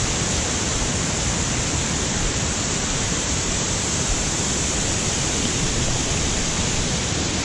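Cummins Falls waterfall crashing into its pool close by: a steady, loud, unbroken rush of falling water.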